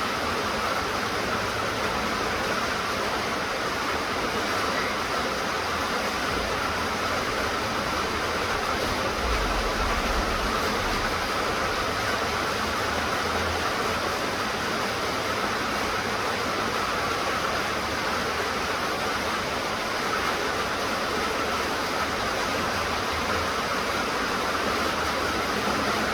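Steady rain falling, an even hiss with no breaks or single drops standing out, and a faint low rumble now and then underneath.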